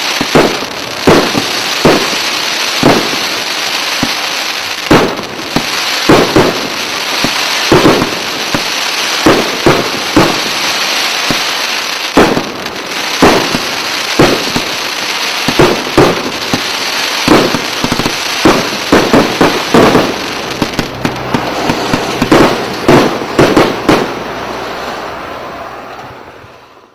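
RP900 multi-shot firework cake firing, with a sharp bang about once a second over a steady hiss. The shots come faster near the end, then the sound dies away.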